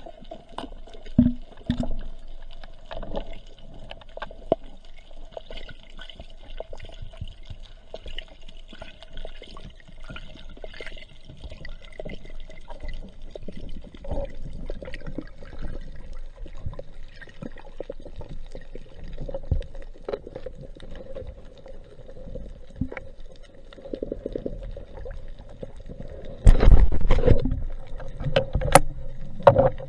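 Muffled underwater sound picked up by a camera submerged with a spearfisher: a steady hum with scattered sharp clicks over a low wash of water. About twenty-six seconds in, a much louder, deep rushing of water comes in.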